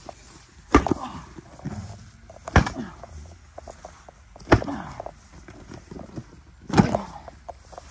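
Four heavy thuds about two seconds apart, each followed by a short ringing: wrestlers' bodies slamming onto a backyard wrestling ring or mat, with lighter scuffing between the slams.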